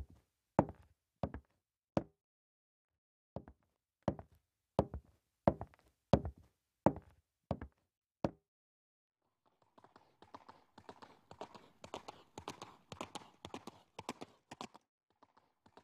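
A series of sharp single knocks on a hard surface, one roughly every half to three-quarters of a second, stopping about halfway through. After a short pause, a dense rapid clatter of many overlapping knocks begins.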